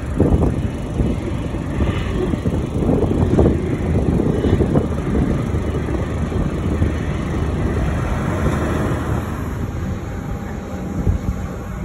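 Steady low rumble of jet airliners at an airport with wind buffeting the microphone, swelling a few times in the first half; the sound changes a little around nine seconds in.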